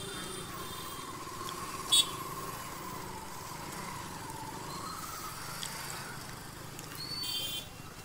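TVS Ntorq 125 scooter's single-cylinder engine running at a crawl in busy street traffic, under a wavering whine for the first five seconds. A short sharp horn beep about two seconds in is the loudest moment, and another honk sounds near the end.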